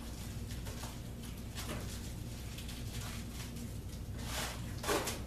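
Utility knife blade scraping and slicing through a carpet tile in short, scratchy strokes, with a sharper scrape near the end. A steady low hum sits underneath.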